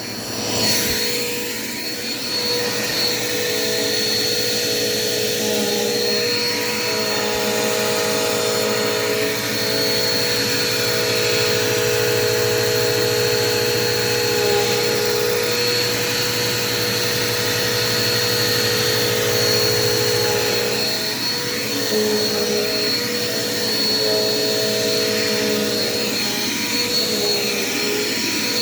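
Dirt Devil Quick Power vacuum cleaner running steadily with a motor whine whose pitch shifts slightly in the middle.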